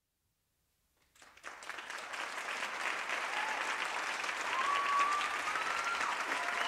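Audience applause starting about a second in after a moment of silence, building quickly and then holding steady, with a few long high whistles over it in the second half.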